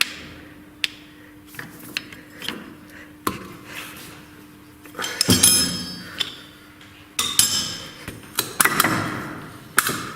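Metal tools and engine parts being handled on a workbench: scattered light clicks and taps, with two louder bouts of metal clinking and ringing about five and seven seconds in.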